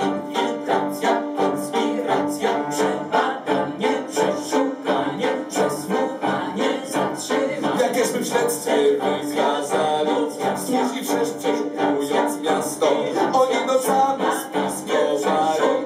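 Live cabaret band playing an instrumental passage of a song, with a quick, even beat of about three beats a second.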